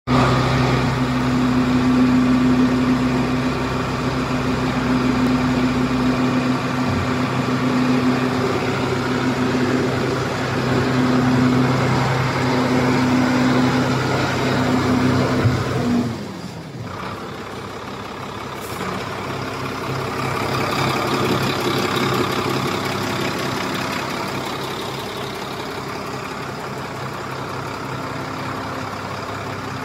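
Heavy diesel truck engine idling with a steady hum. About sixteen seconds in the loud low hum stops abruptly and a quieter, steady engine sound carries on.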